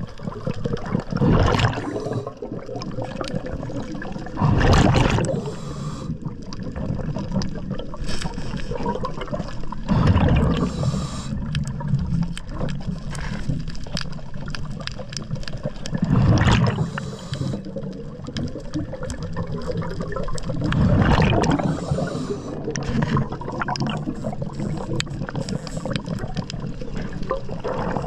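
A scuba diver's regulator, breathing out in a rush of bubbles five times at gaps of three to six seconds, with a steady hiss between breaths.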